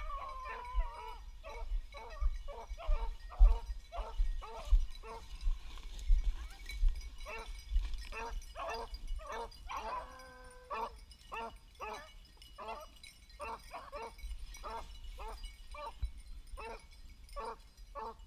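Beagles baying as they run a rabbit's trail: quick repeated barks, about two or three a second, with a long drawn-out howl at the start and another about ten seconds in.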